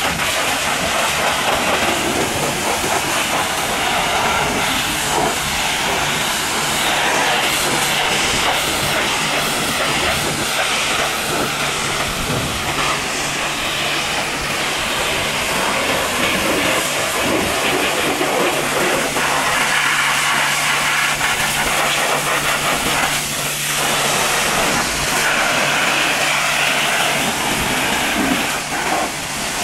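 High-pressure washer jet blasting water and dried mud off a Ford truck's cab, wheel and steps: a loud, steady hiss and spatter over a steady low hum.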